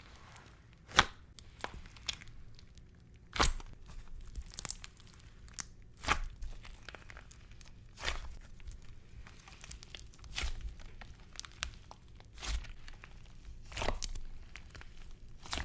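Carrot-shaped squishy filled with beads being squeezed, giving a sharp crunch about every two seconds with fainter crackling in between; the crunch is more slushy and sandy than crisp.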